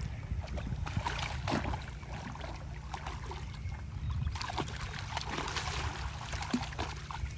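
A hooked iguana thrashing and splashing in shallow water at the edge of a canal as it is hauled in on a fishing rod, in irregular bursts of splashing.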